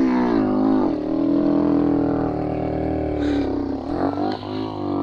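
Romet Ogar 202 scrambler's small engine running under load up a dirt climb. Its pitch sags and recovers about half a second in, then drops and wavers again near the end as it bogs. The rider complains it badly loses power.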